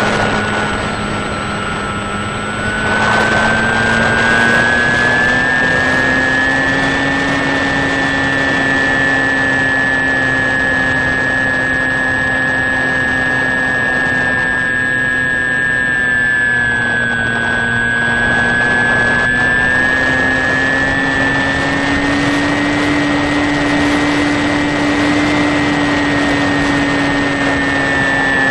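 Brushless electric motor and pusher propeller of a HobbyKing Sky Eye FPV plane, heard from the onboard camera in flight: a steady whine over air noise. The pitch sags and the sound softens for a couple of seconds, then rises and gets louder about three seconds in, dips again around the middle and climbs slightly near the end.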